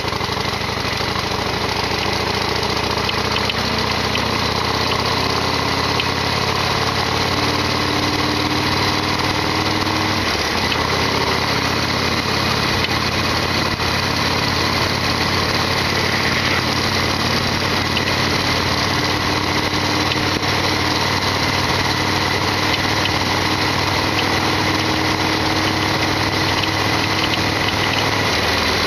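Harley-Davidson Sportster XL1200R's V-twin engine running steadily.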